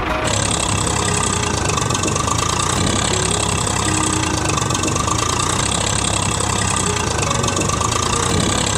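Vehicle engine running steadily, a sound effect dubbed over a toy truck as it is driven across sand.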